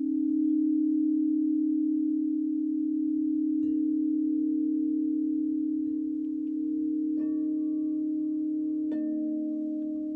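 Alchemy crystal singing bowls ringing: a steady low tone holds throughout, and higher bowls are struck and join in with sustained tones about three and a half, seven and nine seconds in.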